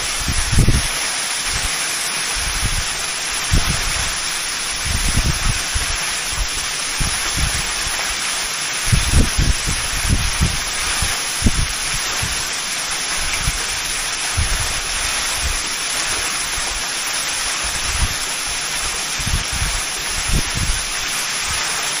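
Three-tiered waterfall about 72 m high, its falling water making a steady rushing hiss. Irregular low gusts of wind buffet the microphone throughout.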